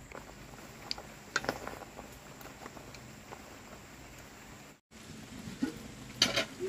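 A pot of peanuts simmering over a wood fire: faint bubbling with a few light clicks and knocks, the loudest about a second and a half in. After a cut near five seconds, rain falling.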